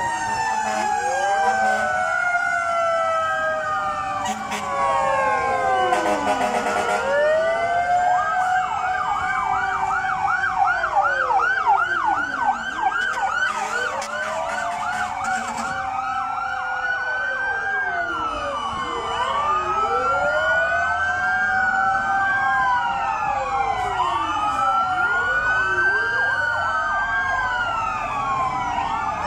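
Several fire truck sirens sounding at once, their wails rising and falling out of step with one another. A fast yelp joins in from about eight to sixteen seconds in.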